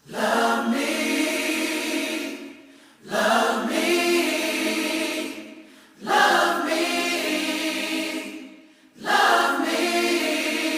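Background music: a choir singing in four phrases, one starting about every three seconds and each fading out before the next.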